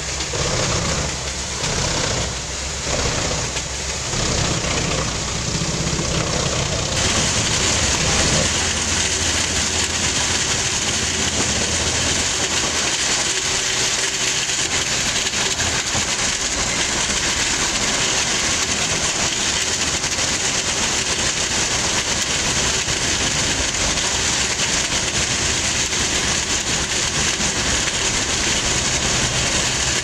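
Large crane-fed wood chipper chipping logs: a loud, dense mechanical noise, pulsing unevenly for the first several seconds, then a continuous even noise from about seven seconds in.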